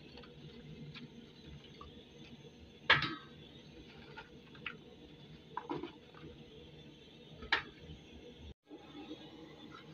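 Potatoes being picked out of a plastic basket of green pods and dropped into a metal bowl: a few knocks, the loudest about three seconds in, with light rustling of the pods between them.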